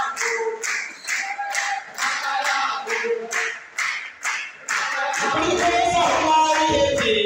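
A man singing into a microphone over steady rhythmic hand clapping, about three claps a second. About five seconds in, fuller music with a low bass line swells in under the voice.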